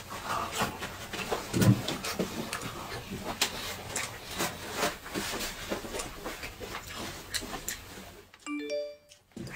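Close-up mouth noises of greedy eating: chewing, slurping and smacking in quick irregular clicks. Near the end the noise cuts out for about a second, leaving a short electronic sound effect of a few rising beeps.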